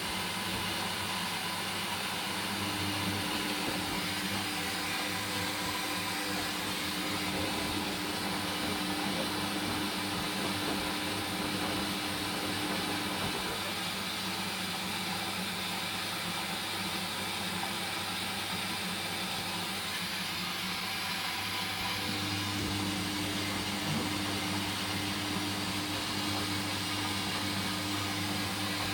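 Hoover Dynamic washing machine running steadily through its second rinse: an even mechanical whirr with a hum that drops away about halfway through and comes back near the end.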